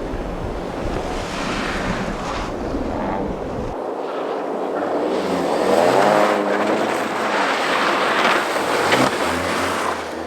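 Suzuki Swift Sport rally car running on a snow stage, its engine note rising and falling as it revs and shifts, growing loudest about six seconds in as the car passes. Low wind rumble on the microphone in the first few seconds.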